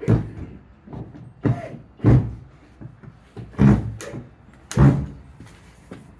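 A series of loud, irregular thumps and bangs, about five heavy ones over roughly five seconds with lighter knocks between them.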